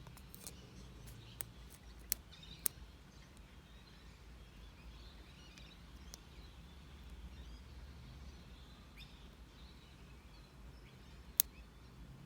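Steel lock pick and tension wrench clicking in the keyway of a Master Lock 7040 padlock as its pins are worked: a few sharp clicks in the first three seconds and one more near the end.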